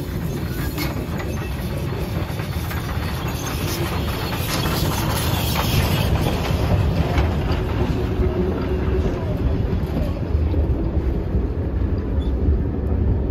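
Steam locomotive 'Bison' and its train of vintage carriages passing at close range: a steady low rumble of wheels on the rails with clicking over the rail joints, growing louder as the locomotive goes by.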